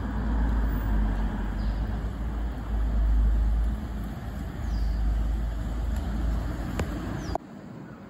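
Loud, uneven low rumble of outdoor background noise, which drops off abruptly near the end.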